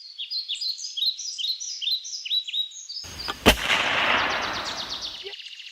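A bird chirps in quick falling notes, about three a second. About three seconds in a sharp gunshot-like bang cuts in, followed by a long rumbling noise with a fast ticking that cuts off abruptly.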